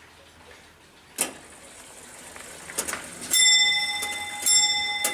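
Antique 1800s grandfather clock movement striking the hour on its bell: a couple of mechanical clicks, then two bell strokes about a second apart, each left ringing.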